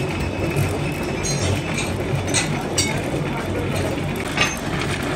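Foundry machinery running with a steady low rumble and hum, with a handful of sharp metallic clinks in the middle and near the end.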